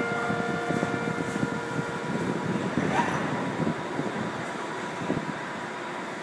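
TTC H5 subway train pulling out of the station, its wheels rumbling on the rails as it gathers speed. A few steady tones sound over the rumble in the first couple of seconds, then fade.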